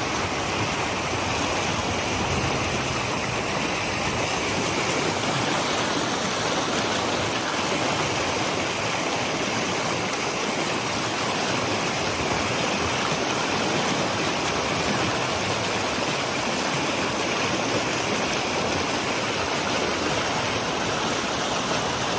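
Fast, shallow creek rushing over rocks in a riffle, a steady, even rush of water.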